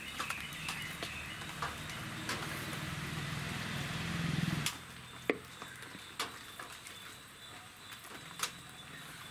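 Stone roller turning in a granite grinding stone (aattukal), grinding soaked jowar with a low rumble that grows louder and stops abruptly about halfway through. Light knocks and scrapes follow as the ground flour is scooped out by hand.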